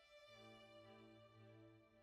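Very quiet background music of slow, held notes, with a low sustained note coming in shortly after the start.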